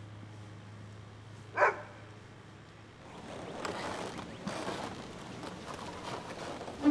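A dog barks once, about a second and a half in, over a low steady hum. From about halfway on come rustling and a few knocks as the white vinyl gate is opened and people come through it.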